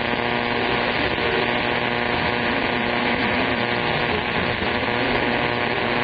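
CB radio receiver on 27.025 MHz hissing with static under skip conditions, with a set of steady carrier tones and faint warbling signals underneath.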